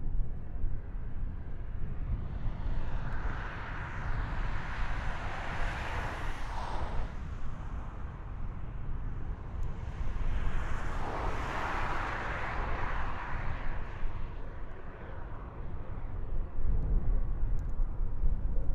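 Aircraft engine noise from a plane passing the airfield, swelling up and fading away twice, over a steady low rumble of wind on the microphone.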